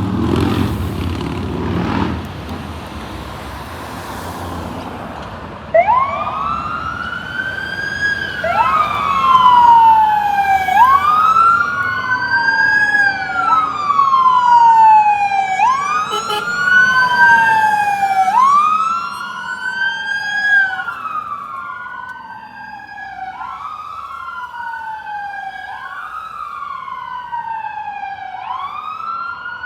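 Two fire engines' electronic sirens wailing together, slightly out of step, each rising quickly and falling more slowly about every two and a half seconds. They start about six seconds in after a stretch of low engine noise, grow loud, then fade toward the end.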